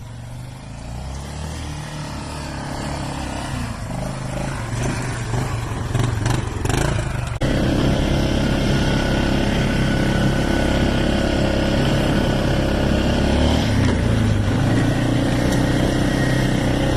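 A 2000 Yamaha Grizzly 600 ATV's single-cylinder engine running while riding, growing louder over the first several seconds; about seven seconds in it cuts suddenly to a louder, steady run.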